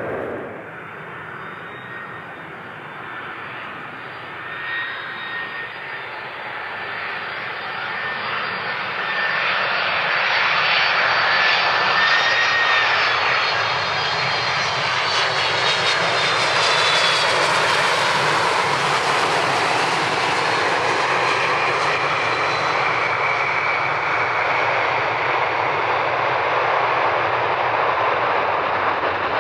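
Twin-engine widebody jet airliner on final approach and landing. The turbofan whine builds as it nears, its tones dropping in pitch as it passes about halfway through. The sound grows into a loud, steady roar through touchdown and rollout.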